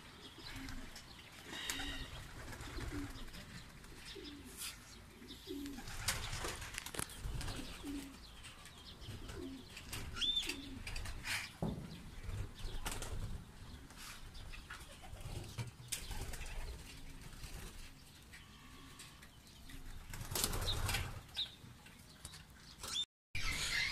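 Homing pigeons' wings flapping now and then, with low soft pigeon cooing repeating through it.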